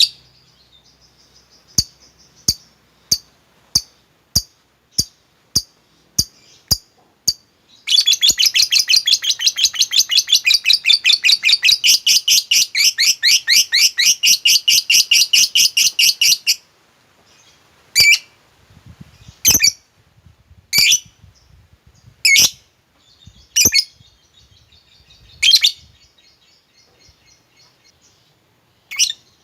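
Lovebird calling: about ten short, sharp chirps evenly spaced. Then comes a long, rapid chattering trill of about eight seconds, the 'ngekek' that lovebird keepers use as a lure call. After it come single loud chirps every second or two, with faint chatter between them.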